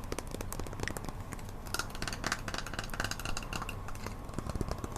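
Close-miked small clicks and taps of a utensil against a glass jar being handled, with a few short ringing clinks about two to three seconds in, over a steady low hum.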